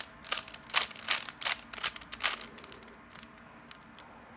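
A 3x3 Rubik's cube being turned fast, its plastic layers clicking and clacking in a quick, irregular run. The clicks thin out to fainter, sparser ticks about two and a half seconds in.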